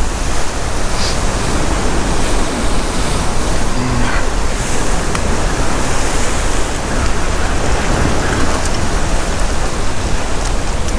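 Ocean surf surging and washing over a rock ledge, a steady wash of breaking white water, with wind noise on the microphone.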